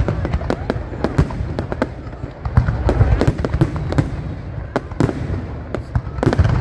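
Aerial fireworks going off in a rapid, irregular barrage of sharp bangs and crackles over a continuous low rumble.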